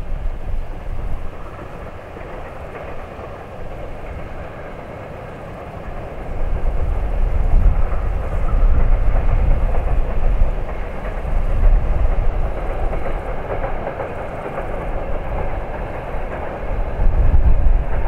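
Freight train behind a General Electric TE33AC diesel locomotive rolling past, a steady rumble of wheels on the rails that grows louder about six seconds in.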